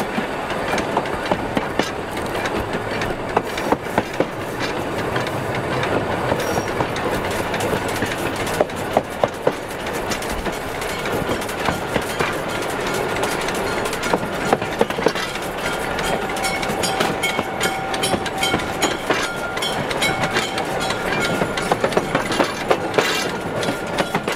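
Narrow-gauge steam locomotive running, its driving wheels, coupling rods and valve gear clanking in quick, irregular clicks and knocks over a steady rolling noise. A faint steady whine joins in about two-thirds of the way through.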